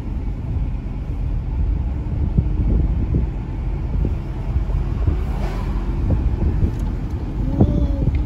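Car interior road noise while driving: a steady low rumble of the engine and tyres on the road.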